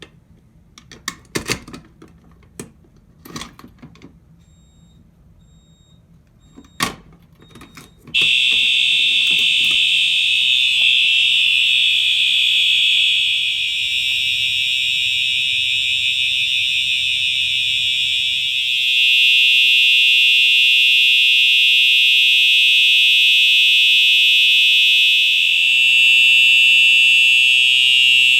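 A few knocks and clicks, then about eight seconds in a home fire alarm system's bells start ringing loudly and continuously on a general alarm, set off by key-activating a manual pull station.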